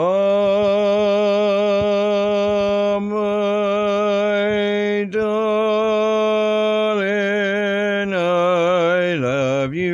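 A man singing unaccompanied, drawing out one long held note with vibrato over several breaths; near the end the pitch dips and comes back up.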